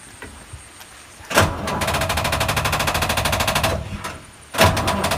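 Starter motor of a 2012 Ashok Leyland tourist bus cranking its diesel engine in two tries, a rapid even rattle for about two seconds and then a shorter try near the end, without the engine catching. It is a cold start after months standing unused, and the owner takes the failure for a weak battery.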